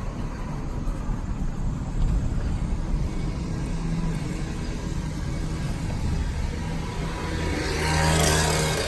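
Loaded truck driving on the road: engine running with a low tyre and road rumble. A rushing noise swells and fades near the end.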